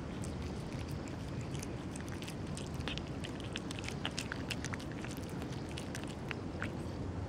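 Calico cat eating wet food from a plastic tray, a rapid irregular run of small wet smacks and clicks as it chews and laps, over a steady low background rumble.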